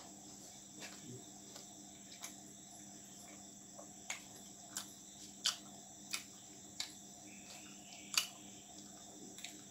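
Close-up mouth sounds of someone chewing roti with potato bhujia: about ten short, sharp wet clicks and smacks at irregular spacing, the loudest about 8 seconds in. A steady high chirping of crickets runs underneath.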